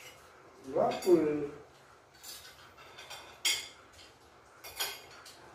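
Spoons and forks clinking and scraping against plates at a shared meal, with sharp clinks about two, three and a half, and five seconds in. A short vocal sound near one second in is the loudest moment.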